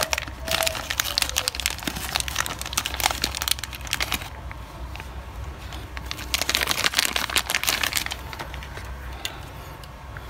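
Clear plastic bag of a clutch slave cylinder repair kit crinkling as it is handled and its parts are taken out, in two spells of crackling that die away about eight seconds in.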